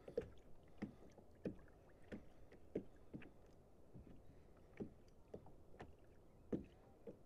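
Faint, soft knocks of small water laps slapping against a plastic fishing kayak's hull, a light knock about every half second to second.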